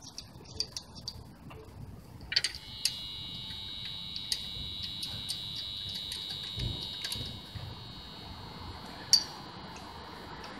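Light metallic clicks of lug nuts being threaded onto wheel studs by hand. From about two seconds in, a steady high-pitched tone sounds under the clicks and grows fainter after about seven seconds.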